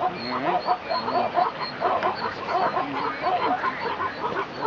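Plains zebras barking: a steady run of short, repeated yelping calls, about two to three a second.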